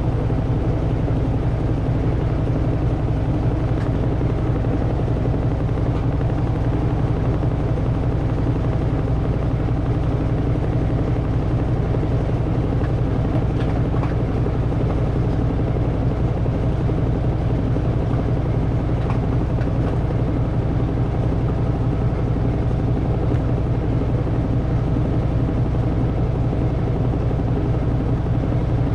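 Samsung front-loading washing machine drum spinning at high speed in its final spin cycle: a steady, unchanging loud hum with a low drone.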